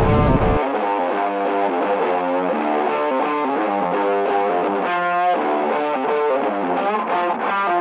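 Background music: a distorted electric guitar playing a rhythmic riff, with the low wind rumble dropping out about half a second in.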